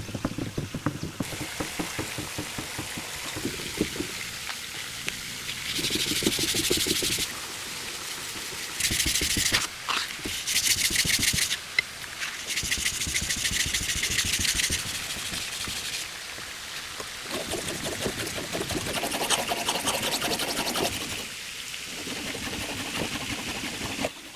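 Forged steel knife blade rubbed against an abrasive, sharpened in a series of separate passes lasting one to three seconds each, with a rasping scrape.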